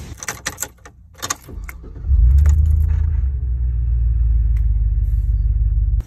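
Keys jingling and a few clicks, then about two seconds in a car engine starts and runs with a steady low rumble.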